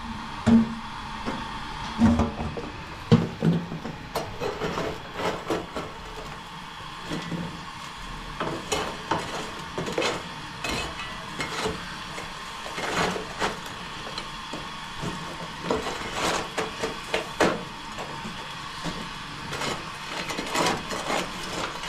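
Hot charcoal embers being pushed and spread over the lid of a large aluminium cooking pot with a metal tool: repeated scraping and clinking of tool and coals on the metal lid. There are a few heavier knocks in the first three seconds or so.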